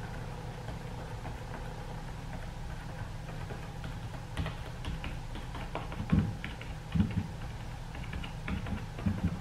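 Crumpled paper towel dabbed repeatedly onto a painted stretched canvas: irregular soft taps that begin about halfway through, with a few louder thumps near the end, over a steady low hum.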